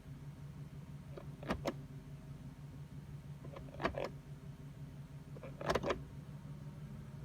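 2005 Cadillac DeVille's Northstar V8 idling steadily after a misfire that has begun to smooth out. Three short sharp clicks, each doubled, come about two seconds apart over it.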